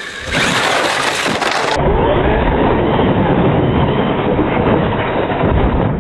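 A large RC truck's electric motor and tyres run hard as it accelerates at a loop of giant plastic building blocks. About two seconds in, the sound turns into a deep, drawn-out, slowed-down rumble and clatter as the truck smashes into the loop and knocks the blocks flying.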